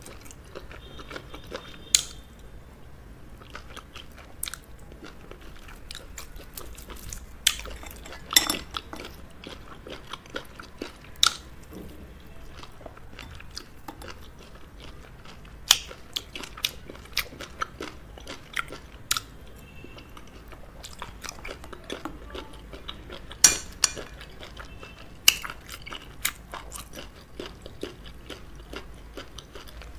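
Close-miked eating of fufu and okro soup with crab: steady chewing and biting, broken at irregular intervals by sharp cracks and crunches, a handful of them much louder than the rest.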